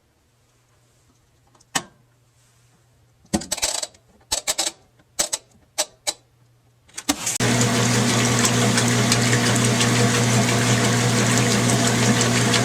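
An engine being started: a few short bursts of cranking or failed catches, then it fires about seven seconds in and runs loud and steady.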